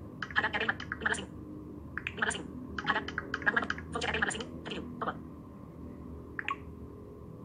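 iPhone VoiceOver screen reader reading out on-screen items in fast, chattering bursts of synthetic speech as a finger moves over the touchscreen. Busy for the first four and a half seconds, then mostly quiet apart from one short blip near the end.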